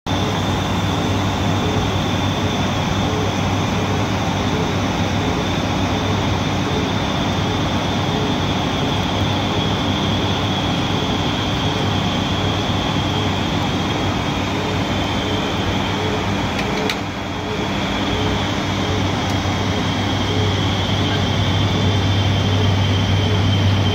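Steady cockpit drone of an ATR 72-600 in descent: the low hum of its twin Pratt & Whitney PW127 turboprops and propellers, with air rush and a thin high whine over it. The sound dips briefly with a click about two-thirds of the way through.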